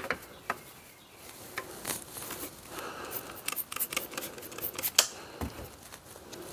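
Scattered light clicks and taps of abrasive pads and a spray bottle handled on a metal sheet pan, with a cluster of short sharp sounds between about three and five seconds in as the axe head is sprayed wet before sanding.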